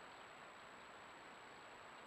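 Near silence: the trail camera's own steady recording hiss, with a faint, thin high whine running through it.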